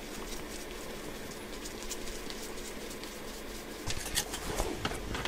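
Light handling noises of a phone repair: faint ticks of a precision screwdriver working the iPhone's bottom screws, then several sharper taps and clicks about four seconds in as the phone is handled on the work surface.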